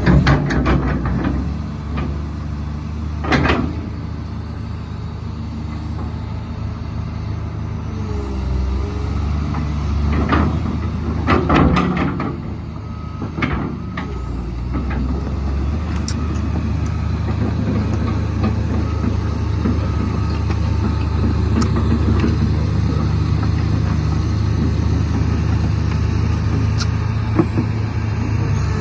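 Komatsu PC300LC-7 excavator's diesel engine running steadily, with a high whine that rises and falls several times as the hydraulics are worked. A few short, sharp hissing or clanking bursts come in the first half.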